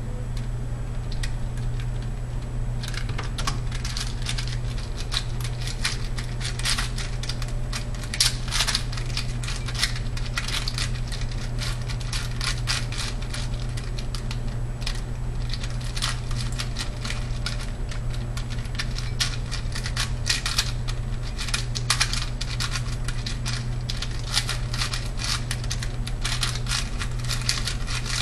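Type C 46 mm mini 4x4x4 puzzle cube being turned rapidly by hand during a timed solve: a dense, uneven stream of plastic clicks and clacks from the layers that starts about three seconds in. A steady low hum runs underneath.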